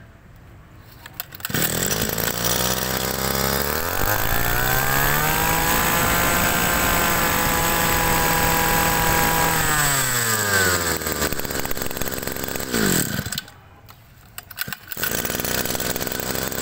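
Mitsubishi 130 two-stroke brush cutter engine, iron-sleeved, starting about a second and a half in and idling. It is then revved up to a high steady speed for about four seconds and let back down to idle. Near the end it goes quiet for about a second and a half, then runs again.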